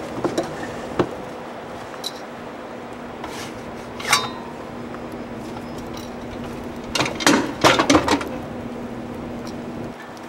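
Folding portable metal grill being opened out, its hinged grate halves and wire legs clanking and rattling in short knocks, with the loudest cluster about seven to eight seconds in as it is laid flat. A steady low hum runs underneath.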